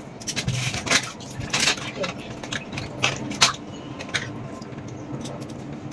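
Mangoes being washed by hand in a steel bucket of water: water sloshing and splashing, with the fruit knocking against the bucket's metal side in irregular clatters.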